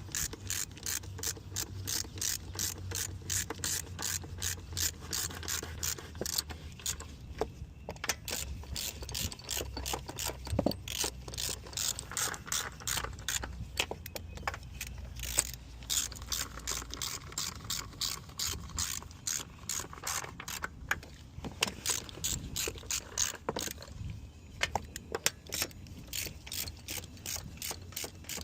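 Hand ratchet clicking in quick, even runs as bolts are run down and snugged.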